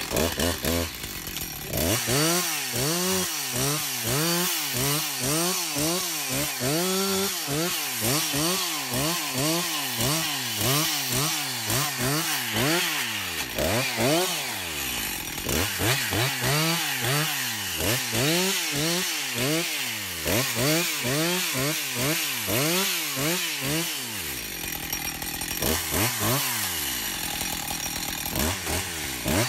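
Petrol chainsaw revved up and down over and over, about twice a second, in short cutting bursts as it tips the stems of a multi-stemmed rhododendron one by one. The revving eases off briefly around three quarters of the way through, then starts again.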